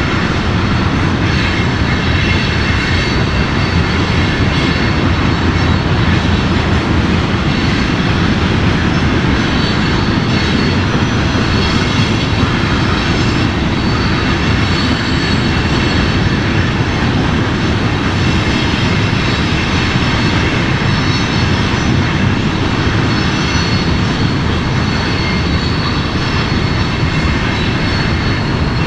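Multirotor drone's motors and propellers whining steadily, with several high tones over a constant rush of rotor noise.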